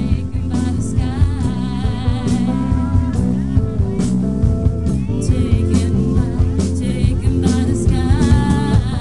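Live rock band playing loudly, an electric guitar lead with wavering, bent notes over bass and drums.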